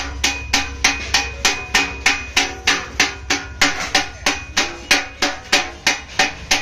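Hand hammer striking a sheet-metal bucket in a steady rhythm, about three blows a second, each with a short metallic ring.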